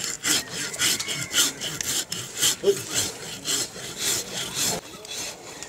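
A hand file rasping across an elephant's toenail in quick back-and-forth strokes, about four a second, stopping shortly before the end. The nail is soft and files easily; it is being trimmed down so that it no longer bears weight.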